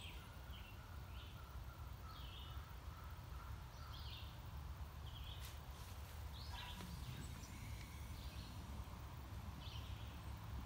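Quiet outdoor ambience: short bird chirps every second or so over a steady low rumble.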